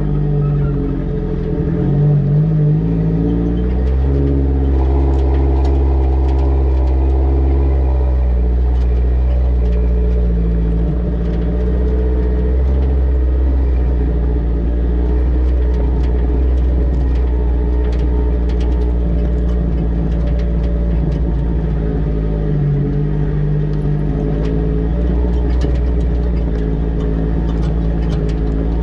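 Vehicle engine running at low speed over a rough, rocky track, its pitch shifting a few times, over a steady low rumble. Scattered clicks and knocks throughout, more of them in the second half.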